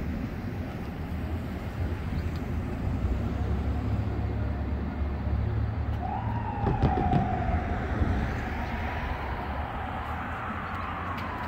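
Ambulance siren wailing in slow rising and falling sweeps, coming in about halfway through, over a steady low rumble of street traffic.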